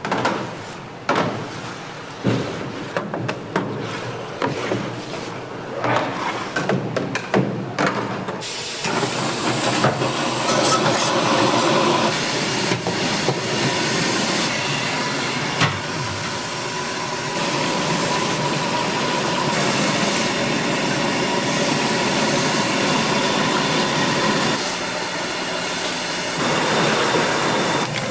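Kitchen utensils knocking and clattering in quick, uneven strikes, then from about eight seconds in a steady hiss of cooking steam that lasts most of the rest.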